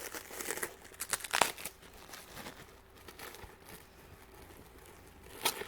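Packaging being unwrapped from new cold air intake parts: irregular crinkling and tearing, with louder handfuls about a second and a half in and again near the end.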